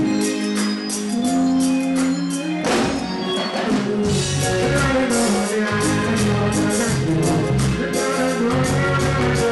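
Live reggae band music, with the bass and drums coming in heavily about four seconds in.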